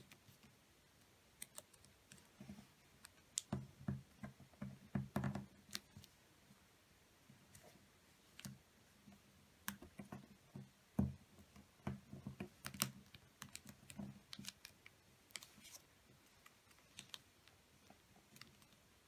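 A 15 cm square sheet of origami paper being folded and creased by hand on a tabletop: irregular small clicks and rustles of the paper with fingers rubbing along the folds, busiest in two spells, a few seconds in and around the middle.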